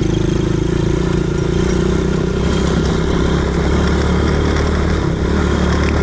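Quad bike (ATV) engine running steadily, with a deeper, fuller low note from about one and a half to five seconds in.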